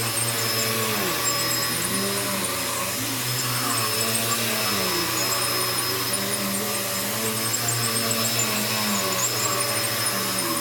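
Bissell vacuum cleaner running steadily while being worked over the back of a thick rug, with a constant motor hum and some lower tones that waver slightly in pitch.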